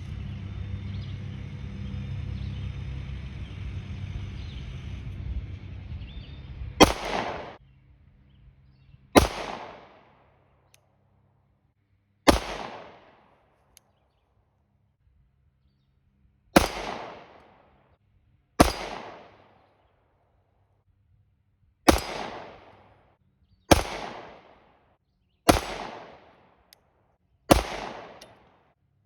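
Sig Sauer P365X 9mm pistol fired in slow, deliberate single shots, about ten in all, spaced one and a half to four seconds apart. Each is a sharp crack with a short decaying ring. A steady background hiss fills the first seven seconds before the first shot.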